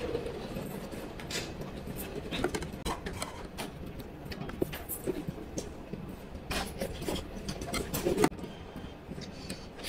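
Someone eating a meal with chopsticks from ceramic bowls and a plate: scattered light clicks of chopsticks and dishes, irregular and a second or so apart, over a steady low room noise.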